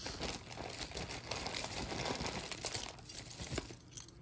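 Crinkling and rustling of packaging as a hand rummages through a box of mixed costume jewelry, with small light clicks of pieces being handled.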